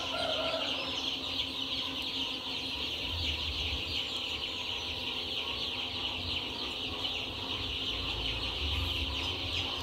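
A brooder full of five-day-old broiler breeder chicks peeping nonstop, a dense high-pitched chorus of many birds, with a faint steady hum underneath.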